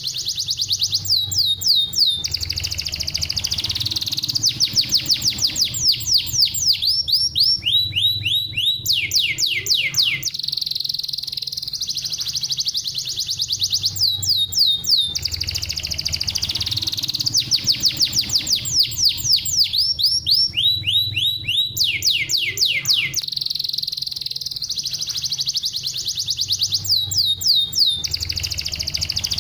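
Domestic canary singing a fast, dense song of rapid high trills and runs of quick downward-sweeping notes. The same sequence of phrases comes round again about every thirteen seconds.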